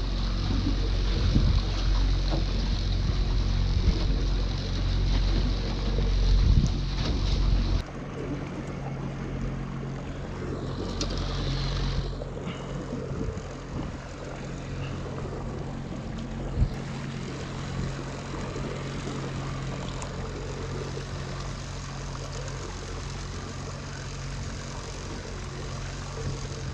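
Boat motor running steadily, mixed with wind and water noise. A heavy low rumble drops away about eight seconds in, leaving a quieter, steady motor hum.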